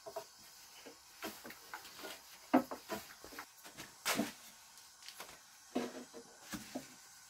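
Thin wooden rolling pins rolling and tapping on low round wooden boards as flatbread dough is rolled out: irregular knocks and scrapes, the loudest about two and a half and four seconds in.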